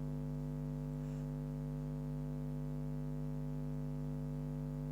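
Steady low electronic hum: a drone of several held low tones that does not change, with no other sound over it.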